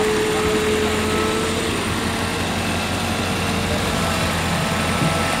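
Backhoe loader's diesel engine running steadily, with a steady higher tone over it that fades out about two seconds in.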